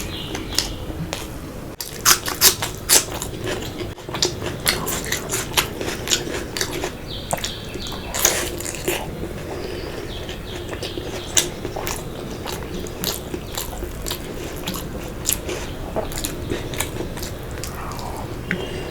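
A person eating close to the microphone: chewing and biting food, with many irregular sharp clicks and smacks over a steady low hum.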